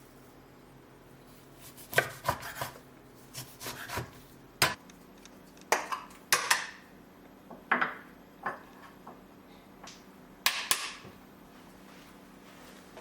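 Kitchen dishes and utensils knocking and clinking, about a dozen irregular, separate knocks.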